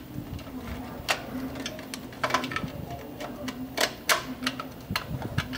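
Irregular small metallic clicks and taps as screws and the sheet-metal heat shield of a Kaleido coffee roaster are handled and worked into place by hand, over a faint steady hum.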